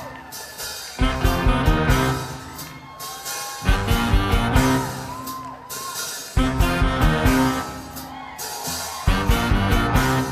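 Live rock-and-roll band with drums, bass, guitar and keyboards playing a stop-time riff: four loud full-band bursts come about every two and a half to three seconds, each fading before the next.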